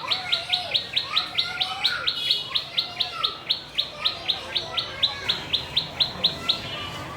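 A small bird calling a rapid, even series of sharp chirps, about four or five a second, that stops abruptly near the end.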